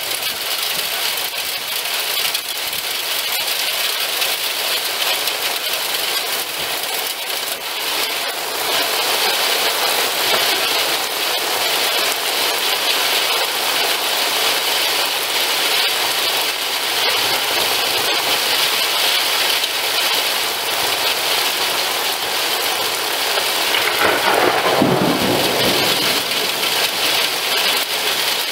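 Heavy rain mixed with hail pouring down in a steady hiss that grows heavier after several seconds. Near the end, thunder rolls in as a low rumble.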